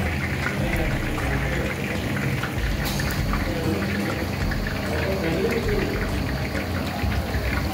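Hot oil sizzling and crackling steadily in a large kadai as jalebi batter is piped in spirals into it and fries.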